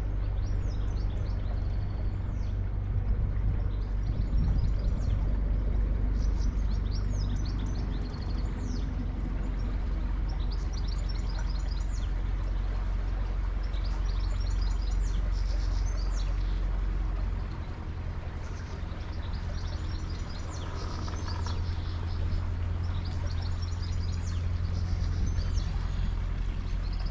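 A boat's engine running steadily as a low hum, its note changing about two-thirds of the way through. Birds chirp and sing over it throughout.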